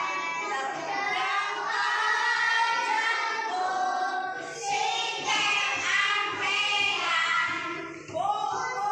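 A class of schoolchildren singing together, with a short break near the end before the next line begins.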